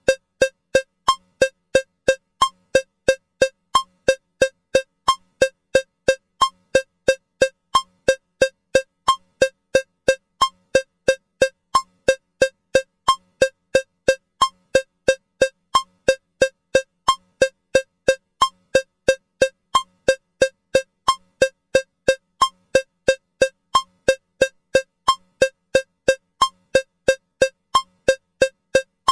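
Metronome cowbell sound ticking at 180 beats per minute, three even strikes a second, with the first beat of each bar of four marked slightly differently.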